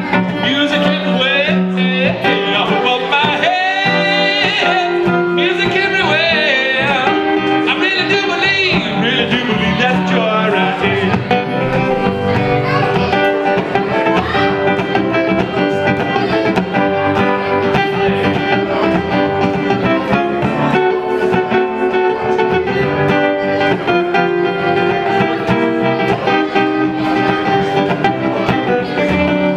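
Acoustic guitar played live by a solo performer, with a sung melody over it for roughly the first nine seconds, then the guitar carrying on alone.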